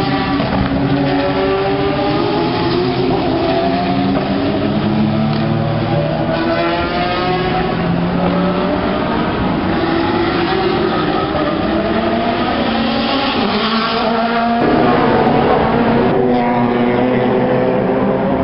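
Several sports racing cars' engines at full throttle: rising engine notes that drop back at each upshift and climb again, overlapping one another, with a sudden change in the mix about two thirds of the way in.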